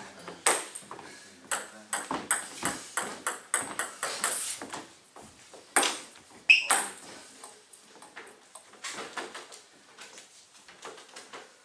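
Table tennis ball clicking off bats and table in a quick rally, with a couple of louder knocks about six seconds in, then sparser, lighter taps of the ball.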